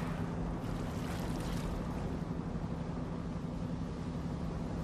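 Small motorboat's engine running steadily, a low even hum, under a hiss of water and wind.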